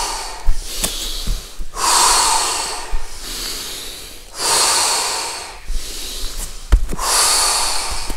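People breathing deeply and forcefully through the mouth, one loud breath about every two and a half seconds. This is the deep-breathing phase of a breathwork round that leads up to a breath hold. A few soft thuds of bare footsteps and kneeling on the tatami floor fall between the breaths.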